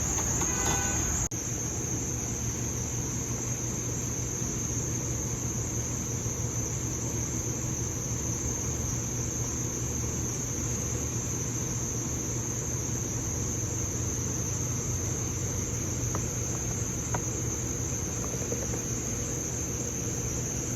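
Steady high-pitched insect chorus, of the cricket kind, over a low steady hum, with a brief break in level about a second in.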